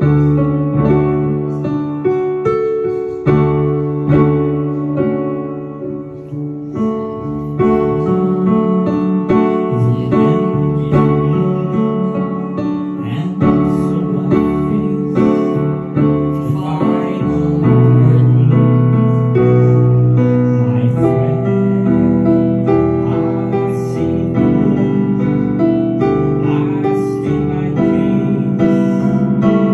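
Digital piano played with both hands: held low chords under a changing melody line.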